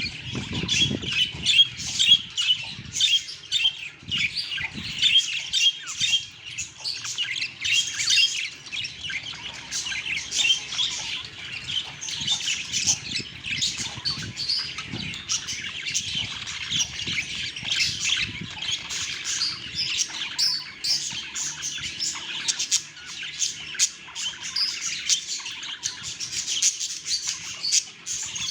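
A group of budgerigars chattering: a dense, unbroken stream of quick, overlapping high chirps and squawks.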